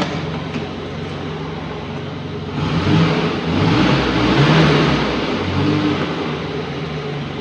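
Suzuki Bolan's engine idling, then revved up about two and a half seconds in, pulled up again a second later and let fall back to idle near six seconds.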